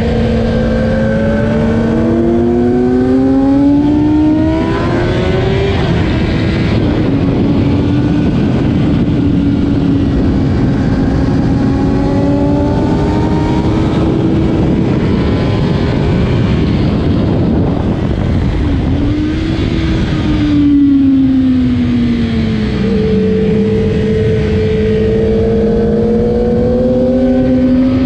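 Stock 2008 Kawasaki ZX-10R's inline-four engine under hard acceleration, the revs climbing and stepping down at each gear change, over constant wind noise. About twenty seconds in the revs drop and pick up again, then climb steadily once more.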